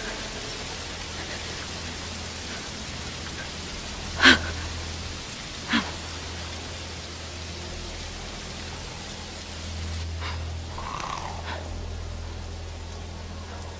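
Steady rushing water of a forest waterfall, with two sharp knocks about four and six seconds in, the first louder.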